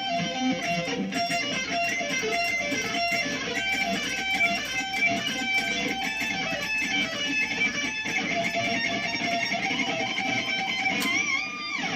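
Electric guitar played through a Cuvave guitar amp unit into small computer speakers, a run of quick picked and strummed notes. Near the end a note is bent upward and held, then fades out.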